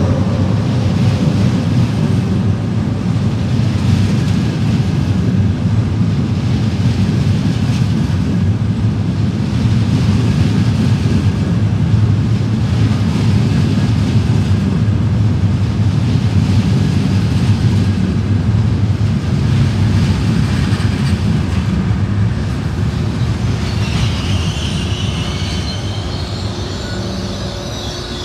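A train running past close by, a steady loud rumble of wheels on rail. About three quarters of the way in, a high metallic wheel squeal sets in as the rumble starts to ease.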